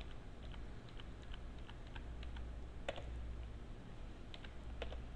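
Typing on a computer keyboard: scattered key taps, with a sharper stroke about three seconds in and another near the end.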